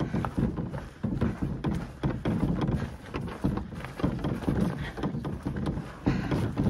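Footsteps of a hiker carrying a canoe and pack, walking steadily on a dirt road covered with fallen leaves, at about two steps a second.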